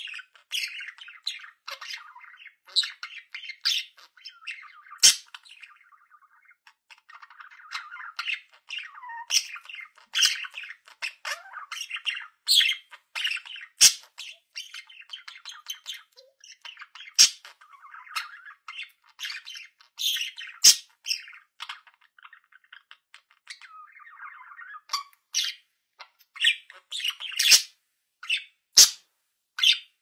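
Budgerigar warbling and chattering on and on, broken by frequent short, sharp chirps.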